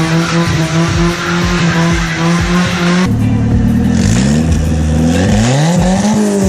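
Car engine held at steady revs, then revving up and down in pitch from about three seconds in, with regular thumps running underneath.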